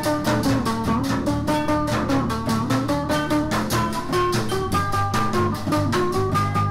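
A band playing upbeat music on homemade instruments, cereal-box guitars among them. A fast, even beat runs under plucked string lines and a moving melody.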